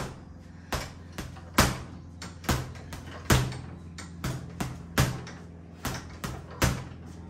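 Boxing gloves punching a hanging heavy bag: a run of uneven thuds, about two a second, some harder than others.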